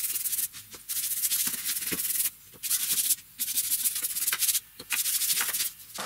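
A bristle brush scrubbing finish onto bare wood: a dry, scratchy hiss in repeated strokes of about half a second to a second, broken by short pauses.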